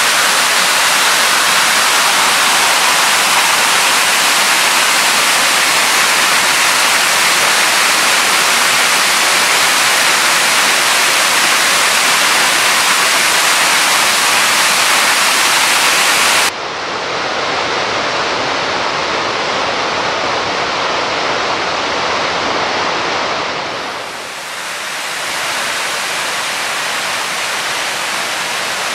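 Steady rushing of a waterfall. About two-thirds of the way through, the sound drops abruptly to a slightly quieter, duller rush, then dips briefly and recovers near the end.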